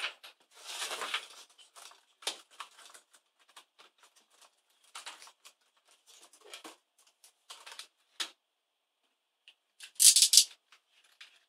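Scattered clicks, taps and rustles of hands working the plastic top case and keyboard of an Asus K55VJ laptop during disassembly, with a louder short rasp about ten seconds in.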